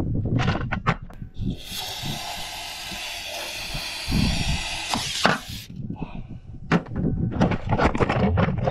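Aerosol can of brake cleaner spraying in one steady hiss for about four seconds, used as starting fluid down the engine's intake before cranking. Knocks and clicks of handling come before and after it.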